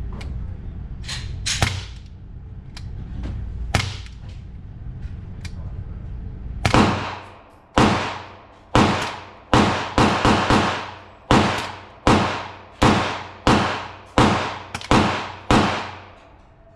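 Glock pistol fired in a steady string of about fourteen shots, one to two a second, starting about seven seconds in, with a few quicker doubles, each shot ringing out briefly. Before the shooting there is a low steady rumble with a few faint sharp clicks.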